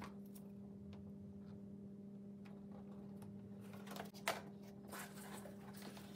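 Faint rustling and light clicks of hands working a self-adhesive LED strip, peeling its backing film and pressing the strip on, over a steady low hum. The sharpest click comes about four seconds in.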